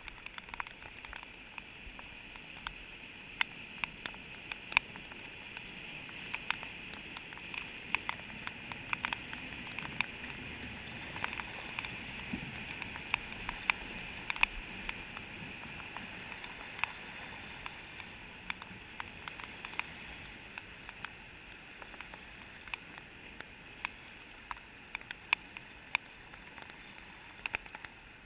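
Fast-flowing flooded river rushing steadily, with many sharp ticks scattered through it. The sound swells a little through the middle as a four-wheel drive wades through the water, its engine faint under the rush.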